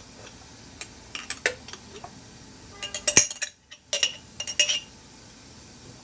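Kitchen utensils clinking and tapping: a spoon and mesh sieve knocking against a bowl in several quick bunches of light clinks, as the sugared turnip slices are moved into the sieve to strain their juice. Midway there is a brief gap of dead silence.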